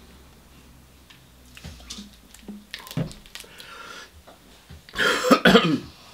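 A man coughs hard, a short bout of two or three coughs about five seconds in. Earlier, about three seconds in, a plastic bottle knocks as it is set down on a table.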